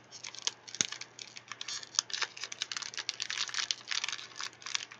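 Bubble wrap being unwrapped and handled: a quick, irregular run of crinkling crackles and clicks.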